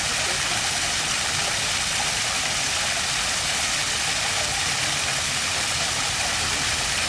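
Water of a stream flowing steadily: an even rushing hiss with no breaks.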